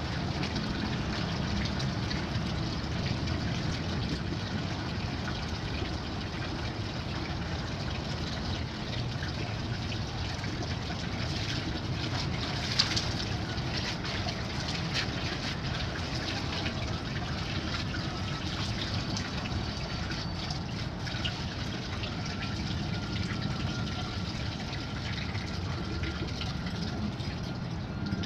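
Water running steadily from a tap at the base of a stainless steel water tank, with one sharp knock about halfway through.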